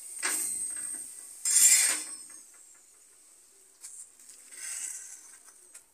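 Flat steel spatula scraping on an iron tawa as a paratha is pressed while it cooks, with two louder scrapes in the first two seconds, then softer scrapes and light clicks.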